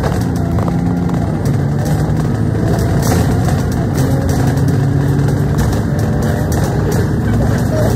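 Bus engine running as the bus drives along, heard from inside the cabin as a steady rumble with a note that steps up and down.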